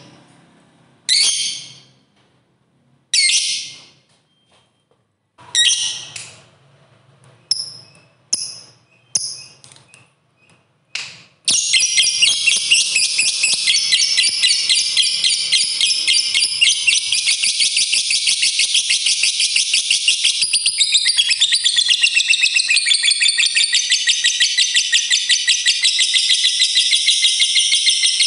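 Lovebird calling: a string of separate sharp shrieks for the first ten seconds or so, then, about eleven seconds in, it breaks into a long, very fast, unbroken chattering trill. That trill is the 'ngekek panjang' (long cackle) that Indonesian lovebird keepers prize.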